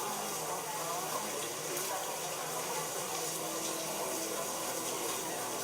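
Rain falling steadily, an even hiss, with faint indistinct voices underneath.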